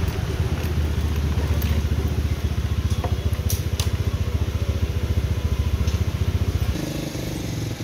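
Small motorcycle engine running at low speed with a fast, even pulsing, easing off about seven seconds in.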